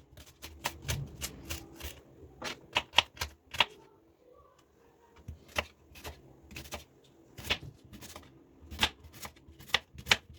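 Kitchen knife cutting vegetables on a chopping board: a run of sharp, uneven taps, several a second, with a short pause about four seconds in.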